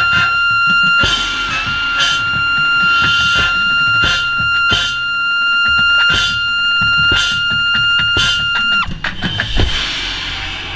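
A drum corps trumpet soloist holds a single very high screamer note for about nine seconds, then cuts off sharply. Heavy drumming and repeated cymbal crashes from the corps' percussion play under the note.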